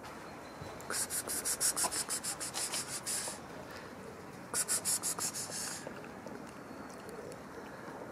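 Cat eating meat chunks from a plastic tub: two runs of quick, rhythmic eating noises at about seven a second, a longer run about a second in and a shorter one about halfway through.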